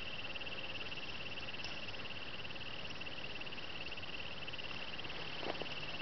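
Insects trilling in a continuous, high, fast-pulsed chorus that never breaks, with a few soft ticks near the end.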